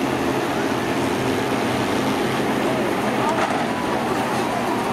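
Engines of several old combine harvesters running hard as they push and ram in a demolition derby, with a short metal bang about three and a half seconds in as two machines hit.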